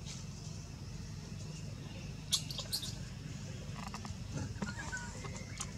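Steady low background rumble, with a few sharp clicks about two and a half seconds in and faint short chirps near the end.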